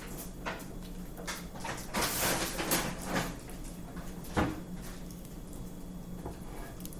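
Sticky fluffy slime being kneaded and pulled by hand: irregular squishing and peeling sounds, busiest about two to three seconds in, with a soft thump a little after.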